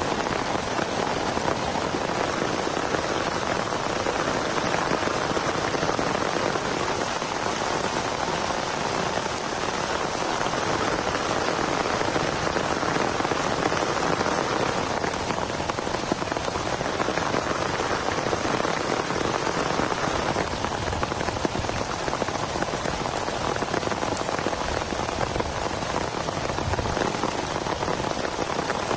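Heavy rain falling steadily, an even, continuous patter.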